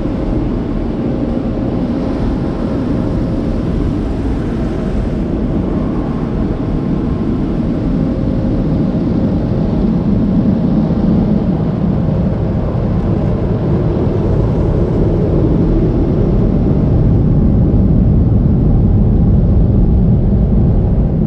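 Steady loud rush of an automatic tunnel car wash heard from inside the car: water spraying over the windshield at first, then the air dryers blasting the car, growing somewhat louder toward the end.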